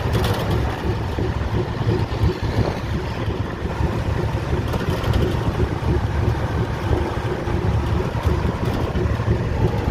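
Hino truck diesel engine running on the move, heard from inside the cab as a steady low rumble. The engine has an abnormal noise that the mechanic calls somewhat dangerous, but not severe.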